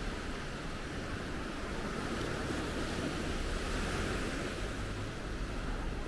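Sea surf breaking and washing up the shore, one wave swelling louder about halfway through, with wind rumbling on the microphone.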